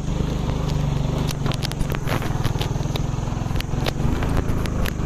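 Motorcycle engine running at low, steady revs as the bike rolls over a rough dirt track, with scattered sharp clicks and knocks over it.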